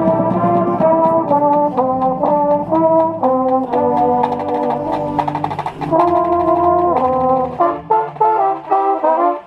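Drum corps brass line playing, with a mellophone right at the microphone loudest. Held chords shift step by step, then a run of short, clipped notes comes near the end, and the sound stops abruptly.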